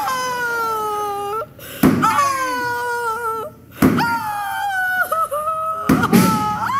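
Three thuds about two seconds apart as an oversized gavel strikes a person's head. Between them comes long, high, falling wailing, a mock crying.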